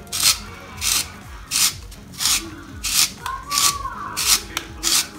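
A zucchini being turned through a handheld spiralizer, its blade cutting the zucchini into noodle-like strands. It makes a rhythmic rasping, one stroke with each twist of the wrist, about three strokes every two seconds.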